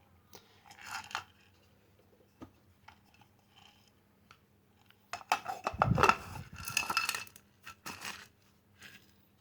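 Long pepper and white peppercorns being ground by hand: irregular scraping and clinking of a kitchen utensil, loudest from about five to seven and a half seconds in, with a few scattered clicks before and after.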